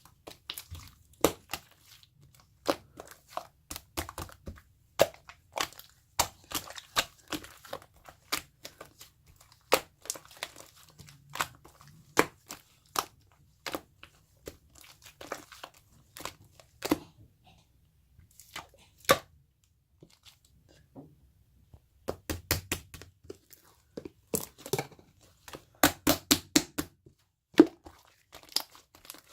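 Slime being squeezed and poked by hand: irregular sticky pops, clicks and crackles, some in quick clusters, with short pauses between.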